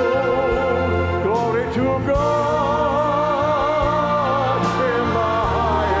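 Choir singing long held notes with wide vibrato over instrumental accompaniment with a steady bass; the melody steps up to a higher held note about two seconds in. A few sharp percussion strikes sound through it.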